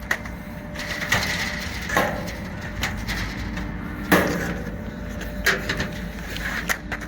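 HVAC air filters being dragged out of a rooftop unit's filter rack with a filter puller: irregular scrapes, knocks and rustles of the filter frames sliding on the rails, loudest about four seconds in, over a faint steady hum.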